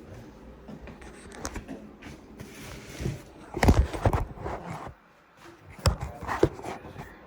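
Knocks, scrapes and shuffling as a heavy old air conditioner unit is handled and moved, with a cluster of heavy thumps about halfway through and two sharp knocks near the end.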